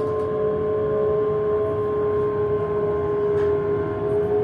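A British Rail Class 385 electric train's traction motors and inverters whining, heard from inside the carriage: several steady tones whose pitch shifts slightly, over a low running rumble.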